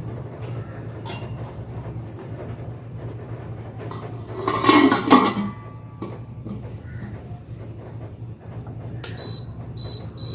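Dishware clattering in a kitchen as the orange is set up to steam, loudest about halfway through. Near the end come three short electronic beeps, typical of an appliance's control panel being set. A steady low hum runs underneath.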